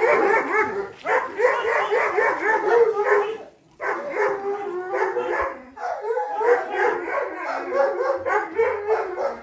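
Several dogs, Jack Russell terriers among them, yapping and yelping excitedly over one another in a constant overlapping chorus, with a short break about three and a half seconds in.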